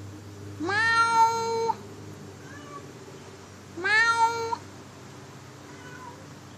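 Male cat yowling his mating call: two long, drawn-out calls, each rising in pitch at the start and then held on one note. The first lasts about a second; the second, about three seconds in, is a little shorter.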